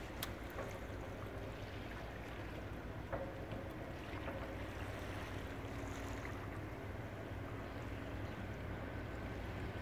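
Steady low rumble of a coastal cargo ship's diesel engine as the ship moves slowly through the harbour, with a faint wash of water and wind.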